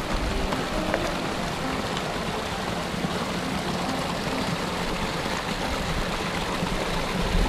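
Small mountain creek running over mossy rocks and splashing down two little cascades: a steady rush of water.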